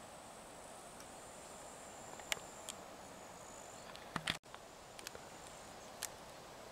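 Faint outdoor ambience: a steady low hiss and a thin, high, steady whine, broken by several sharp clicks. The loudest clicks come as a pair about four seconds in.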